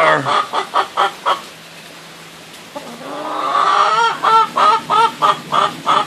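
Hens clucking: a quick run of short clucks, a pause, then a drawn-out rising note about three seconds in that leads into another steady run of clucks, about four a second.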